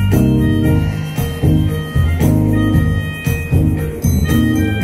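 Live band playing an instrumental passage: drum kit and electric bass guitar under short, bell-like plucked kalimba notes.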